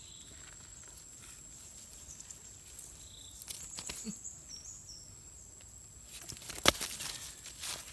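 A mesh umbrella fish trap being handled as fish are pulled out by hand: soft rustling and small scattered clicks, then one sharp knock about two-thirds of the way in.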